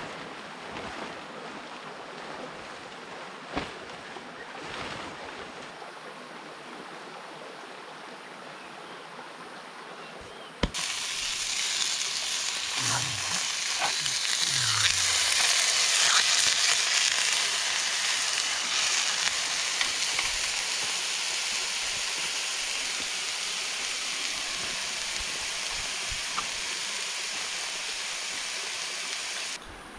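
Hamburger patties sizzling in a frying pan on a portable butane camp stove: a steady, loud hiss that starts suddenly about ten seconds in and cuts off just before the end. Before it, quieter background with a few light knocks.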